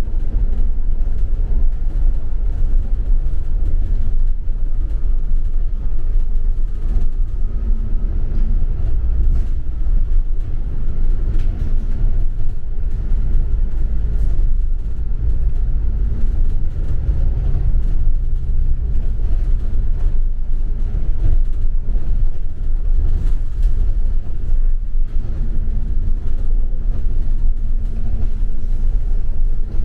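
Steady low engine and road rumble heard from inside a moving double-decker bus, with an engine hum coming up for a few seconds now and then.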